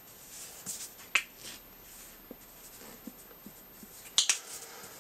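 A few short clicks and taps of plastic cosmetic tubes and bottles being handled: one sharp click about a second in, a few faint ticks, and a pair of brighter clicks near the end.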